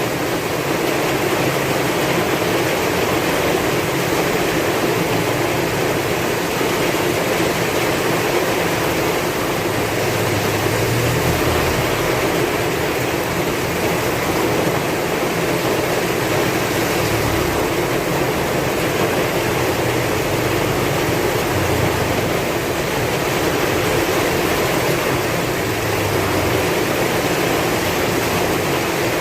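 Heavy rain falling steadily in strong wind, a dense even hiss with a low rumble that swells now and then.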